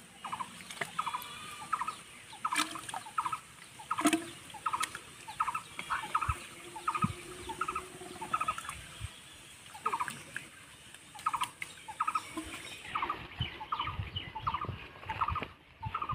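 An animal's short, rattling call repeated about twice a second, with a few sharp clicks among them.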